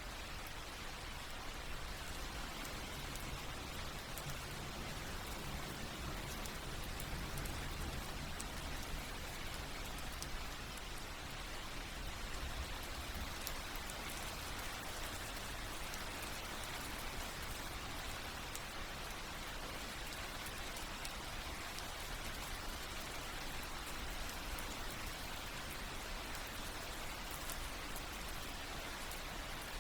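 Steady rain: an even hiss of falling rain with many small drops ticking through it.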